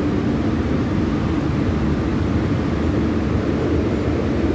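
Steady low rumble and hum inside an MTR Q-Train metro car as it starts to pull away from the platform.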